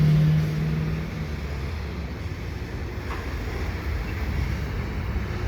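Short freight train rolling past, a steady low rumble of the cars on the rails. A low steady hum is loudest at the start and fades away about a second in.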